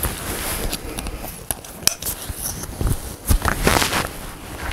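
Canoe pack's nylon shoulder straps and webbing rustling and scraping as they are pulled tight, with several sharp clicks from the strap hardware.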